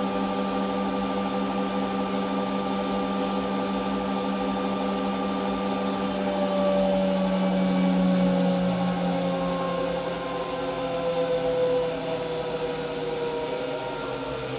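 Whirlpool FreshCare front-loading washing machine spinning after the rinse: a steady motor-and-drum hum with a whine whose pitch slowly falls, the low hum dropping to a lower note about two-thirds of the way through.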